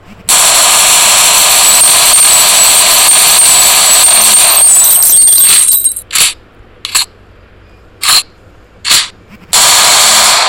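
Thompson M1921 submachine gun (.45 ACP) firing full-auto: one long burst of about five and a half seconds, then four short separate bursts, then another long burst starting near the end.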